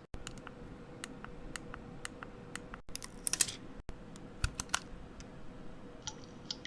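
Light plastic clicks of a pink Hello Kitty flip phone being handled: its keypad buttons pressed and the clamshell closed. The clicks come singly and scattered, with the loudest cluster a little past three seconds in.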